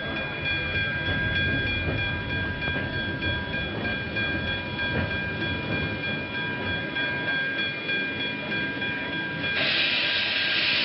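Steam locomotive whistle held in one long, steady multi-tone blast over the rumble of the moving train. Near the end a loud hiss of escaping steam takes over.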